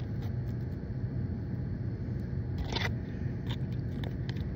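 Steady low rumble of a running car heard from inside the cabin, with a few short crinkles from a foil slime pouch being handled, the clearest a little under three seconds in.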